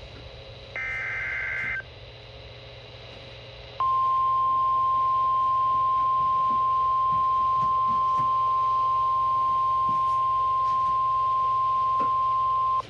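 NOAA Weather Radio emergency alert: about a second in, a short warbling burst of the SAME digital header, then a pause, and from about four seconds a steady, loud, single-pitch 1050 Hz warning alert tone held for about nine seconds, the signal that a warning message follows.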